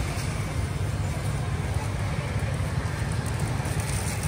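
Steady low rumble of street background noise, with no single distinct event standing out.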